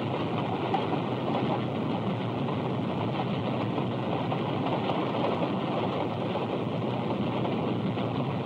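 Steam locomotive and its train running along the track, a steady noisy rolling sound, heard on an early-1930s film soundtrack.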